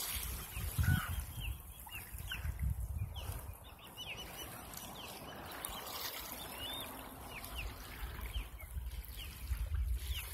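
Shallow seawater sloshing and trickling around a wading toddler's legs, with many short high bird chirps and gusts of low wind rumble on the microphone.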